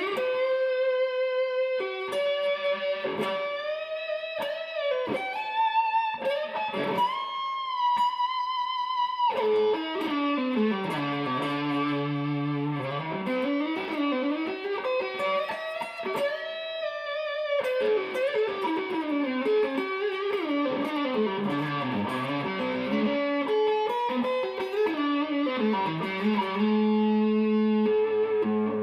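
Tokai Love Rock Les Paul-style electric guitar playing a solo lead: held notes bent up in pitch and shaken with vibrato, then fast runs up and down the neck from about a third of the way in, settling on a held chord near the end.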